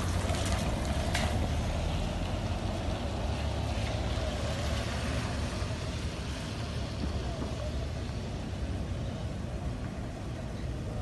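Steady street noise on a phone microphone: a low traffic rumble under a constant hiss, with faint voices in the background.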